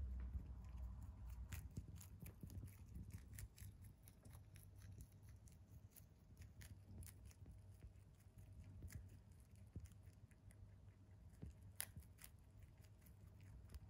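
A rabbit chewing a leafy green stalk: faint, crisp crunches and clicks at an irregular pace, with a soft low rumble right at the start.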